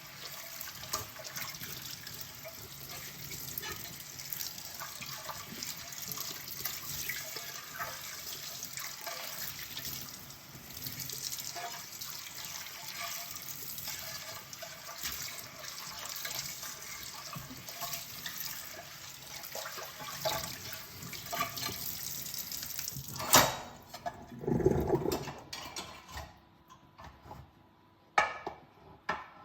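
Kitchen tap running into the sink during hand dishwashing, with small clinks of dishes and utensils. About 23 seconds in, the running water stops at a sharp knock, followed by a dull thump and a few light clinks of tableware.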